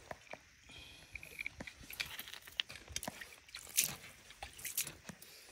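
Water trickling and splattering over a rock and wet red soil, in uneven bursts with scattered small clicks.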